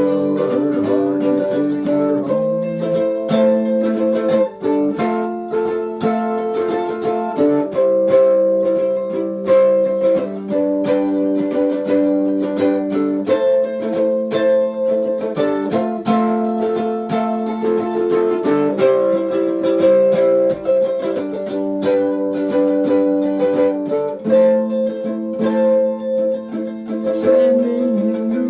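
Homemade cigar-box electric mandolin being picked in a fast, even rhythm in an instrumental break, moving to a new chord every two to three seconds.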